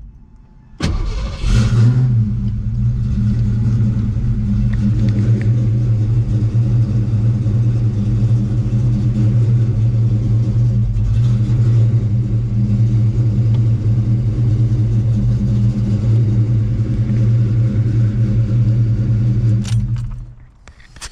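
1991 Ford Mustang Fox-body V8 starting about a second in, then idling steadily and shutting off near the end.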